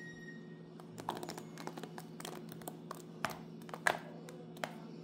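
Light, irregular clicks and taps as a hand scatters small pieces into a bowl of cake batter, over a steady low hum.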